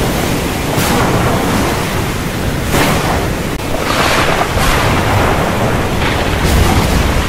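Storm wind blowing hard with heavy rain, rising in gusts every second or so, with wind buffeting the microphone in a low rumble.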